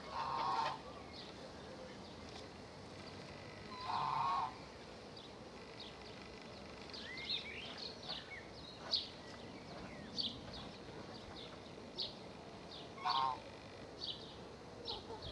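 Birds calling outdoors: many short, high chirps, plus three louder, lower calls of about half a second each, near the start, about four seconds in, and near the end.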